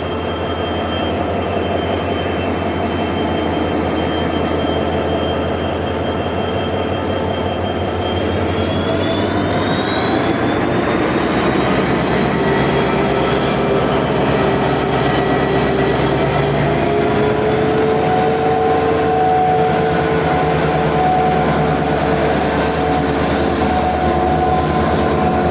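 Train running: a steady rumble under several whining tones. The tones rise in pitch about eight seconds in, as the train gains speed, then hold steady. A short hiss comes at about the same time.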